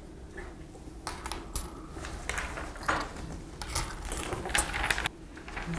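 Small silver guitar-pick pendants clinking and tapping as they are picked up and set down on a tabletop: a run of light metallic clicks starting about a second in, the loudest near the end.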